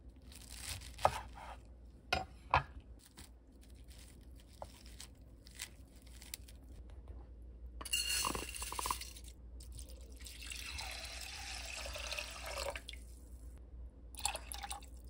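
A kitchen knife chops twice through a bunch of enoki mushrooms onto a wooden cutting board. About eight seconds in, soaked rice is poured from a bowl into an enameled cast-iron pot. Then liquid is poured in for about three seconds, with a brief clatter near the end.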